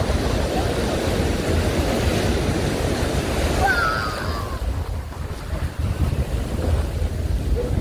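Sea surf washing in and foaming over the sand in the shallows, a steady rush that thins out after about four seconds, with wind buffeting the microphone.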